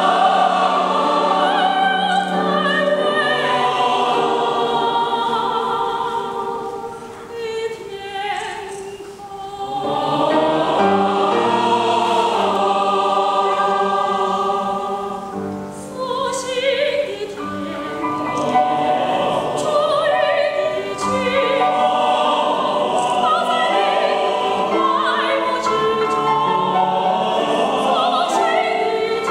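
Large mixed choir of men's and women's voices singing sustained chords in harmony, growing softer about a quarter of the way in and again around the middle, then swelling back.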